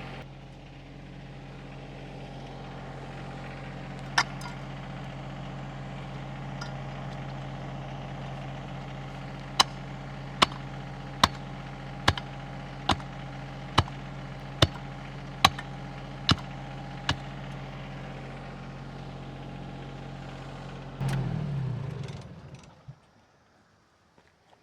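Diesel engine of heavy equipment idling steadily, while a hand tamper strikes the bottom of a post hole about ten times, a little under a second apart. Near the end the engine briefly gets louder, then shuts off and dies away.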